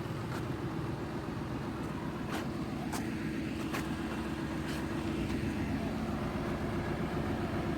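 An engine running steadily with a low hum, and a few short sharp clicks over it in the first five seconds.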